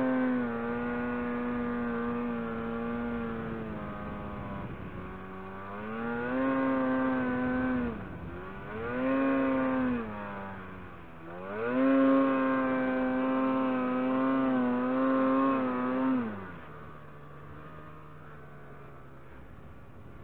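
Ski-Doo Summit SKS snowmobile engine under throttle in deep powder. It revs up and holds four times, the longest hold near the end. Then it drops to a lower, steady run for the last few seconds.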